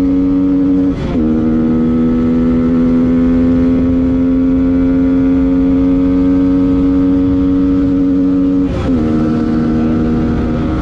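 Yamaha MT-15's 155 cc single-cylinder engine running hard at full throttle, its note climbing slowly and dipping briefly at two upshifts, about a second in and near the end, as the bike accelerates past 100 km/h. Wind rush sounds on the microphone.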